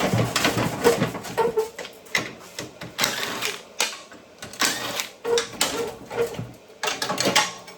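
Plasma cutter cutting through a lawn mower's steel frame: a harsh hiss and crackle that comes in irregular spurts with sudden starts and stops.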